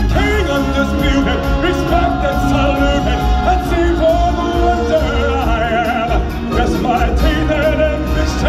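Live stage-show music: voices singing long held notes over band accompaniment with a steady bass.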